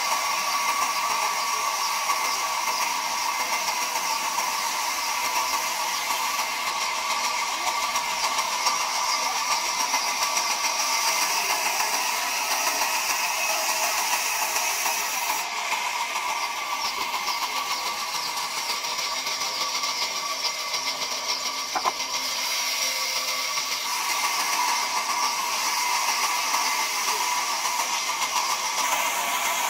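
Large sawmill band saw running and ripping a thick timber slab into planks: a steady whine over a rushing cutting noise, dipping slightly about two-thirds of the way through.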